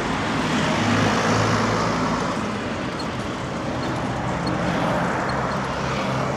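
Busy road traffic close by: a steady rush of engine and tyre noise, with the low hum of a nearby vehicle engine swelling about a second in and again near the end.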